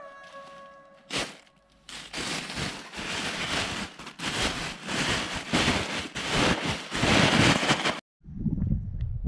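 Black plastic bin bag rustling and crinkling as it is handled, from about two seconds in until it cuts off suddenly near the end. A low rumble follows.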